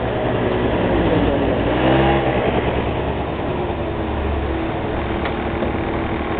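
A motor vehicle's engine running, its pitch rising and then falling about two seconds in.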